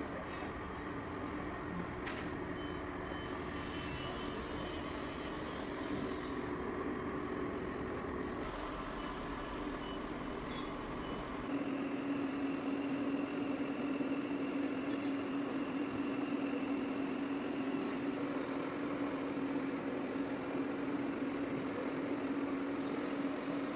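Metal lathe running with a steady mechanical hum while turning a stainless steel pump shaft. About halfway through, the hum becomes a little louder and steadier.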